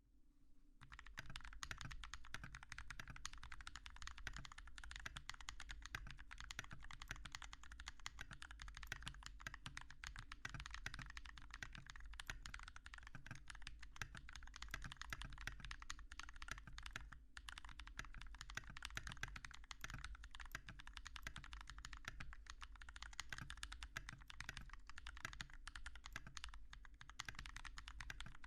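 Fast, continuous typing on a GMMK Compact mechanical keyboard with lubed Holy Panda tactile switches (Halo Clear stems in YOK Trash Panda housings), Tai-Hao keycaps and an aluminum plate: a dense run of keystroke clacks starting about a second in, with a brief break about seventeen seconds in.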